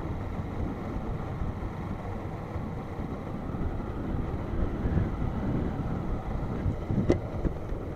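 Honda CG 160 Start motorcycle under way at low speed: its single-cylinder engine running with road and wind noise on the microphone. A short click about seven seconds in.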